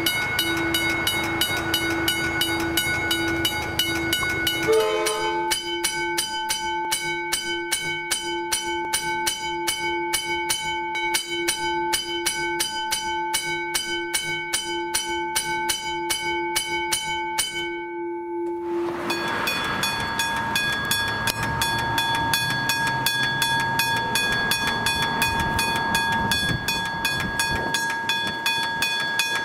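Three Australian level crossing teardrop bells, one after another, each striking its gong in a rapid, even run of rings. First a McK&H aluminium teardrop, then about five seconds in a Westinghouse McK&H teardrop with a different ringing tone. Near nineteen seconds it changes to a Westinghouse Brake and Signal teardrop bell, heard with more background noise.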